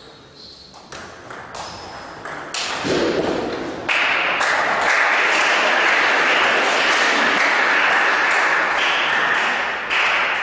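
Table tennis ball clicking off bats and table in a rally. From about four seconds in to near the end comes a loud, even stretch of applause.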